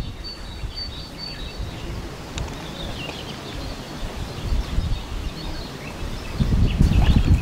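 Outdoor ambience: wind rumbling on the microphone, with a bird chirping a run of short high notes in the first second or two. The wind gusts louder near the end.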